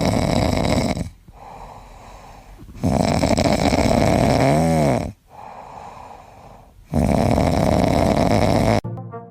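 Loud snoring: three long snores about four seconds apart, with quieter breaths between. The second snore ends in a short squeaky whistle that rises and falls in pitch.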